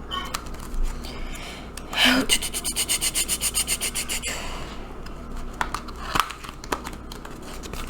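Packaging of an eyeshadow palette being handled and opened: rubbing and scraping, with a rasping run of quick, even ticks lasting about two seconds near the middle.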